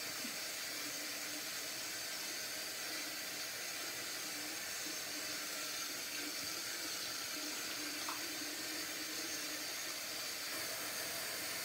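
Water running steadily from a bathroom tap, an even hiss with no breaks.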